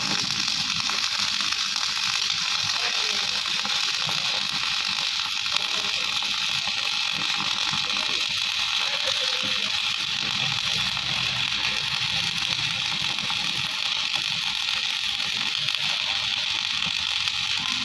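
Stick welding arc crackling steadily, an even high crackle with no breaks.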